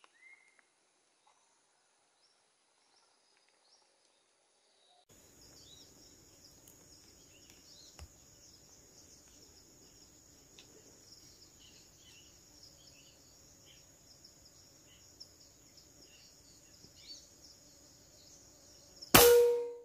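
Steady high-pitched insect chorus starting about five seconds in, then one loud air-rifle shot near the end with a brief ringing tone after it.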